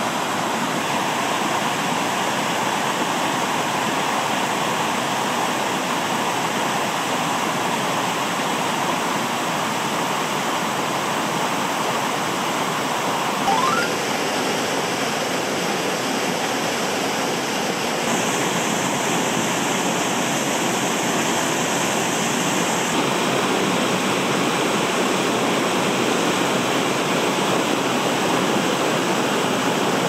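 Mountain stream rushing steadily over rocks. A brief bump and a slight change in tone come near the middle.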